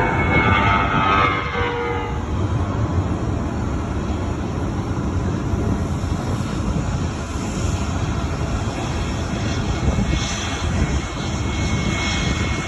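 Jet airliner engines running, a steady wide rumble. A higher whine falls away in pitch over the first couple of seconds.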